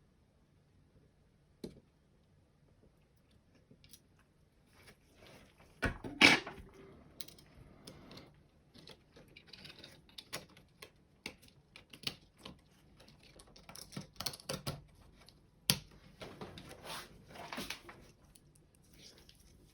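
Small plastic parts of a Razer Diamondback computer mouse being handled and fitted by hand: irregular clicks, taps and short scraping rustles, with a louder clack about six seconds in and a sharp click near sixteen seconds.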